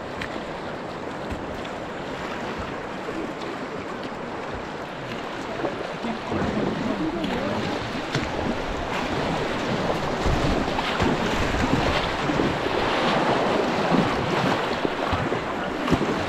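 White-water river rushing around the kayak, growing louder about six seconds in as the boat runs into a rocky rapid, with occasional paddle splashes.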